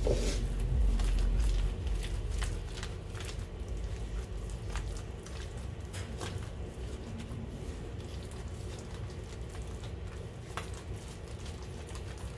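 A gloved hand mashing and working margarine, shortening and powdered sugar into a frosting in a glass bowl by hand: soft squishing with irregular light clicks and taps of the hand against the bowl. A knock at the very start, with a low rumble for the first couple of seconds.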